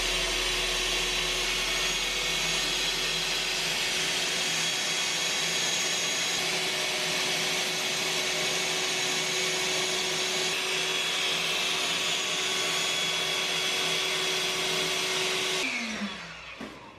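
Small handheld electric air pump running steadily, sucking the air out of an inflatable pool float. It switches off near the end and its pitch falls as the motor winds down.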